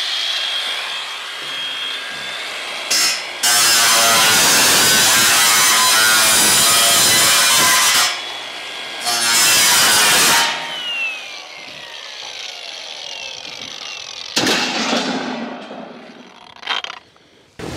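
Cordless drill driving self-drilling screws into the steel purlins of the shed wall. It runs in one long burst of about four seconds, then a shorter one soon after, and a brief one later on.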